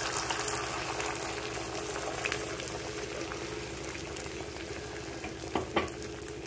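Egg-and-mushroom omelette batter sizzling in melted butter on a hot tawa, just after it was poured, with a steady hiss that slowly eases. Two light clicks sound close together near the end.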